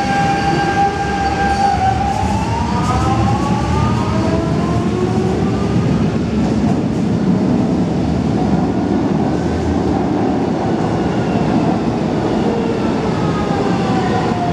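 Lisbon Metro ML99 electric trains. One pulls away from the platform, its traction-motor whine climbing in pitch from about two seconds in over a constant wheel and track rumble. Near the end another train's whine falls in pitch as it brakes coming in.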